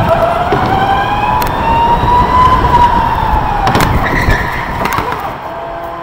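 Electric go-kart motor whining over tyre and track noise. The whine rises in pitch for the first couple of seconds, then falls away. Two sharp knocks come in the second half.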